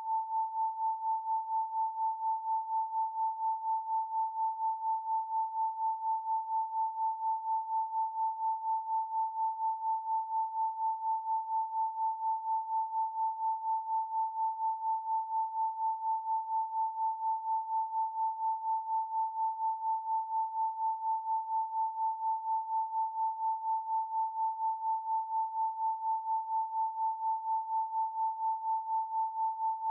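Pure 888 Hz sine tone held steady at one pitch, pulsing evenly in loudness a few times a second.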